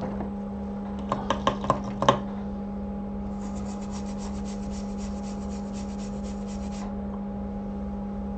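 Steady low electrical hum with a few small clicks, then a few seconds of fast, light scraping at about nine strokes a second, as of a small hand tool rubbing on a hard surface.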